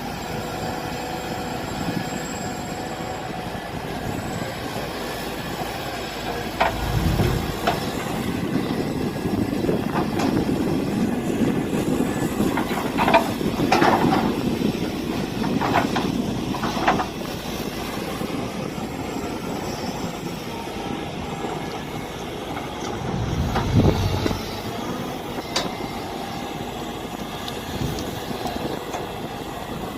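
Mini excavator engine running steadily while digging, with sharp metallic clanks from the bucket and arm, a cluster of them around the middle, and a couple of low thumps.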